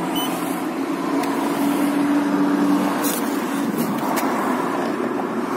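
Steady background noise of road traffic, with a low hum for a couple of seconds about a second in and a few faint clicks.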